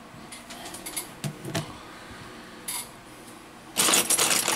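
Handling noise from a smartphone repair: a few small clicks and taps as the opened phone and its display panel are handled, then about four seconds in a loud, dense clatter of rapid clicks and rattles.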